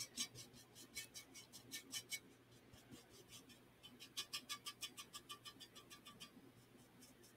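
Paintbrush scratching over a ceramic piece in quick short strokes, several a second, faint. The strokes stop for a couple of seconds partway through, then resume.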